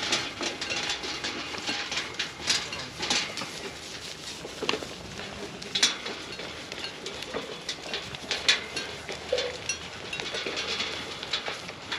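Goats feeding side by side at a metal fence-line feeder: continuous crunching and rattling of pelleted feed, with irregular sharp knocks and clanks against the feeder's steel rails and wire panel.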